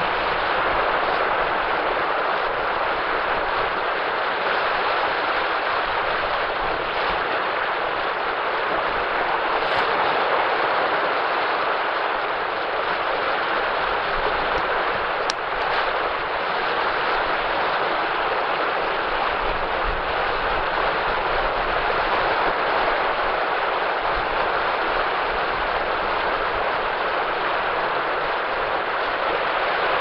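Small waves breaking and washing up a sandy beach: a steady rushing hiss of surf with no single crash standing out.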